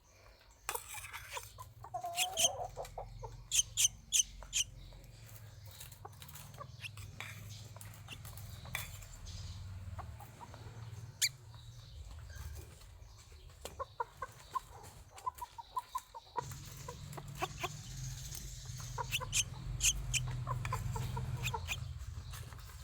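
A pet bird's short calls, mixed with many sharp clicks and taps, over a low steady hum that grows louder about two-thirds of the way through.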